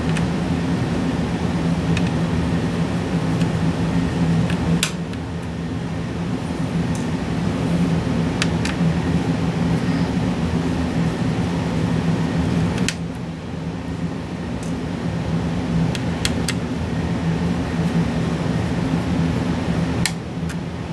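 A steady low mechanical hum, dropping a little in level a few times, with scattered light clicks as small screws are taken out of a graphics card's back plate.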